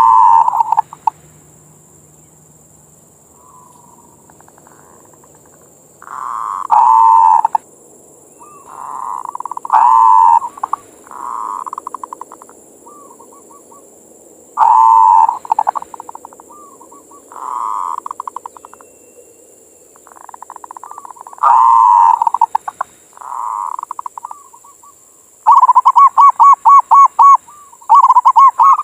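Zebra dove (perkutut) cooing its manggung song: rolling coo phrases repeated every few seconds, ending in a quick run of short clipped coos near the end.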